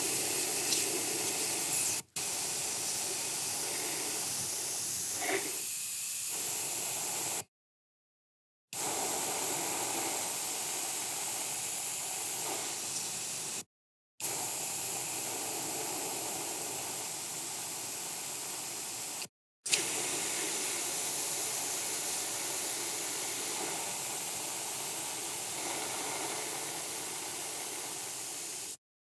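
Aerosol spray can spraying in long, steady hisses: five sprays of roughly two to nine seconds each, each cut off sharply, with a short silence between them and a small click at the start of some.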